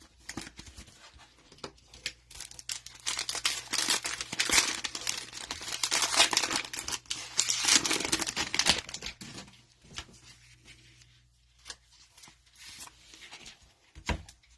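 Cellophane wrapper of a football trading-card cello pack being torn open and crinkled: dense crackling for several seconds in the middle, then lighter scattered crackles and clicks.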